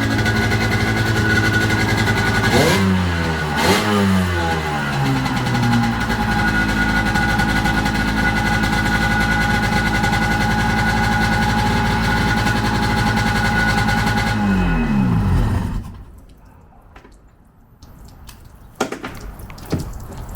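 1995 Sea-Doo GTX's two-stroke twin engine idling out of the water on a garden-hose flush hookup. It is blipped twice a few seconds in, runs steadily, then is shut off about 15 seconds in, its pitch falling away as it stops. It is running with an exhaust leak between the exhaust manifold and the pipe. A few knocks follow near the end.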